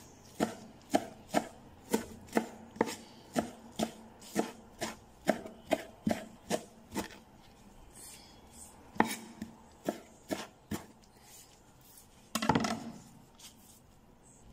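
Kitchen knife finely chopping parsley on a plastic cutting board, the blade knocking on the board about twice a second for the first seven seconds. After a pause come a few more strokes and a brief louder sound near the end.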